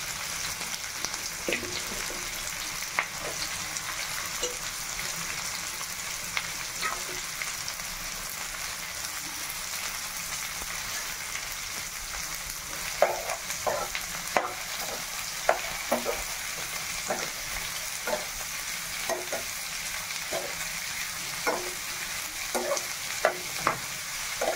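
Sliced onions, curry leaves and green chillies sizzling steadily in hot oil in a steel frying pan. From about halfway through, a metal spatula stirring them, knocking and scraping against the pan again and again.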